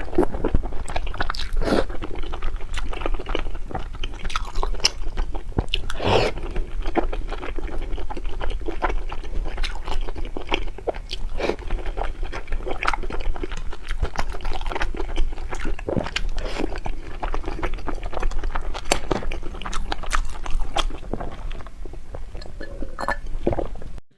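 Close-miked eating of snow-skin mochi (xuemeiniang) desserts: steady chewing and biting with many irregular wet mouth clicks and smacks. It cuts off abruptly just before the end.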